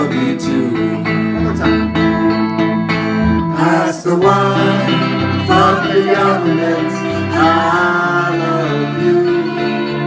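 A live band playing a stretch of the song without lyrics: strummed guitar over a bass line that changes note every second or two, with a melody line rising and falling over it now and then.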